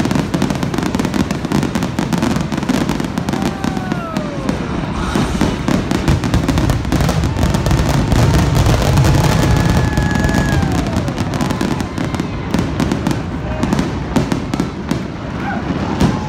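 Aerial fireworks going off in a dense, rapid barrage of shell bursts over a heavy low rumble, with a few whistles falling in pitch.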